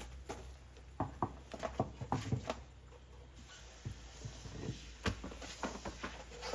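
Light knocks and scuffs of golf-cart wheels and tires being handled and set down, in a cluster about a second in and again about five seconds in, over a steady low hum.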